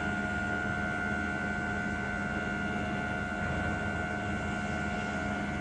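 Steady whirring hum with a thin, constant whine over it, from the Koehler automated air release value analyzer running just after being switched on.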